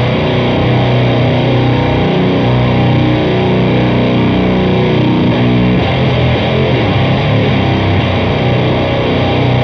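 Heavily distorted, fuzzed electric guitar playing a slow, low doom-metal riff in B minor, with sustained notes. The guitar is a First Act Custom Shop DC-6 tuned to B standard, played through a blend of octave fuzz and chainsaw-style distortion.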